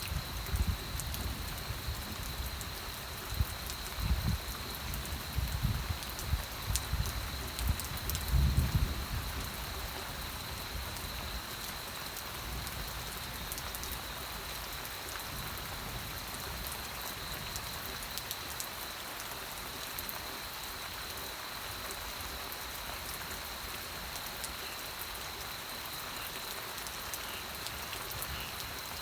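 Steady rain falling: an even hiss scattered with the ticks of single drops, and a faint steady high tone above it. Low rumbles come and go in the first ten seconds, loudest about eight seconds in, then the rain runs on evenly.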